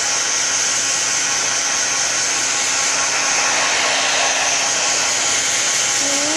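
Handheld hair dryer running steadily at full blast, with a steady airy hiss and a faint motor hum; near the end a short pitched sound rises in pitch over it.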